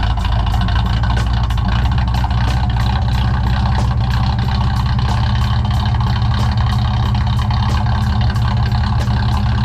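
Datsun 240Z's 2.4-litre straight-six engine idling steadily.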